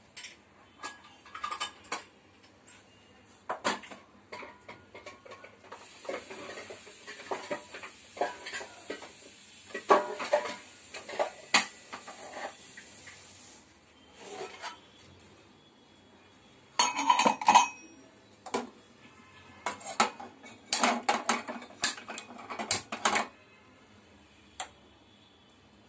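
Spoons and kitchen vessels clinking and knocking in scattered clusters while ingredients for a tempering are measured into a pan. A steady hiss runs for several seconds in the middle.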